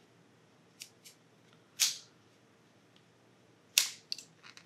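Sharp little clicks and snaps of a small 3D-printed plastic hat being handled, its brim separate from the crown. There are scattered single clicks, the loudest about two seconds in and just before the end.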